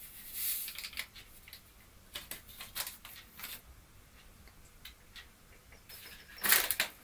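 A small paper sachet of vanilla sugar rustling and crinkling as it is handled and emptied into a plastic mixing bowl. It comes as short scattered rustles and light clicks, with the loudest rustle near the end.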